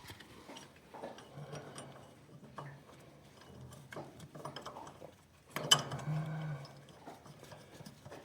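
Hand-tool work on a tractor's clutch assembly: irregular small metallic clicks and ratcheting, as of a ratchet wrench working bolts, with one sharp metal clank about five and a half seconds in.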